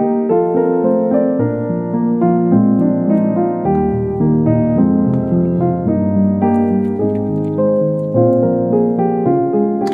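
Background keyboard music: a steady, unhurried melody of notes over held bass notes.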